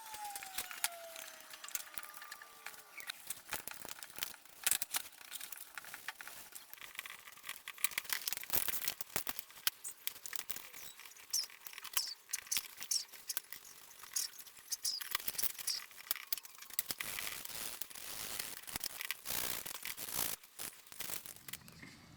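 Brush working paint stripper onto a pressed-steel toy truck body: irregular scratchy dabs and scrapes of the bristles on the metal, with a short falling squeak right at the start.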